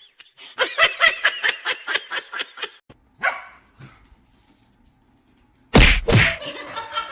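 Small dog barking rapidly, about five yaps a second for nearly three seconds, with one more yap soon after. About six seconds in comes a loud sudden thud, followed by voices laughing.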